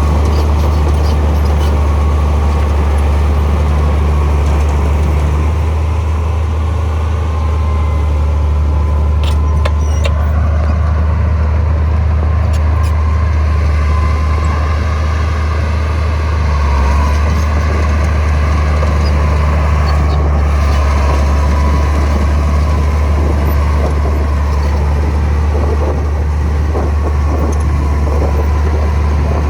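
Heavy diesel engine of earthmoving machinery running steadily with a deep low drone, with a few short clicks about a third of the way in and again near the middle.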